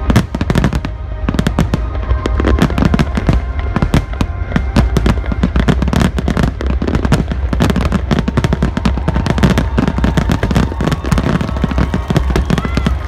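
Fireworks display with shells and crackers going off in rapid, dense succession, many sharp bangs and crackles overlapping, with music playing underneath.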